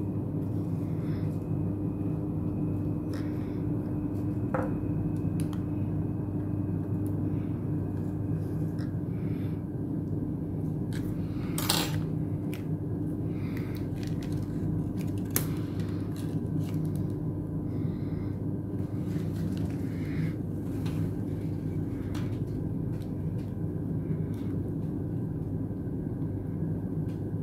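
Steady low background hum with a few small clicks and taps of work on a phone's internals, the sharpest click about twelve seconds in, as a flex cable connector is fitted back into its socket.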